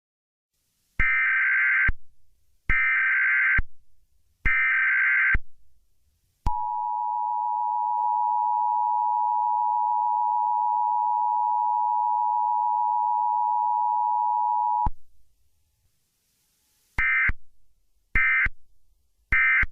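Emergency Alert System broadcast signal. It opens with three bursts of digital header data tones, about a second each, followed by the steady two-tone attention signal held for about eight seconds. Near the end come three shorter bursts of data tones.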